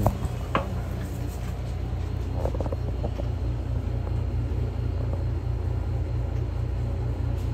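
A steady low rumble, with two short clicks in the first second.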